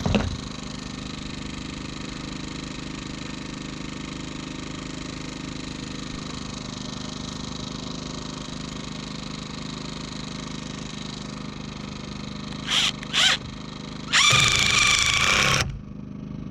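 Power drill driving a fastener into framing lumber: two short trigger blips near the end, then one steady run of about a second and a half, over a steady background hum.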